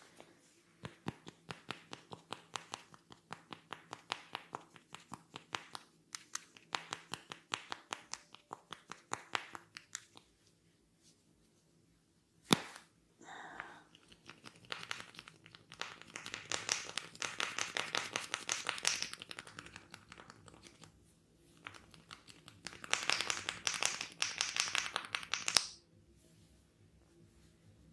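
Hands massaging a head and hair. First comes a run of quick, even taps, about four a second. About halfway there is a single sharp crack, the loudest sound. Then come two long stretches of dense, crisp crackling and rustling as the hair is rubbed and worked between the fingers.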